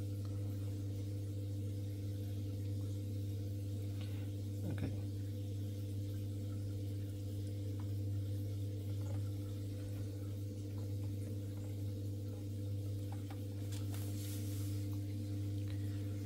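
Steady low hum from the aquarium equipment in the cabinet (canister filter and CO2 setup), with a single click about five seconds in as the regulator is handled.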